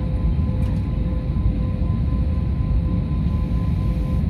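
Steady low rumble of jet aircraft noise on an airport apron, with a faint steady whine over it.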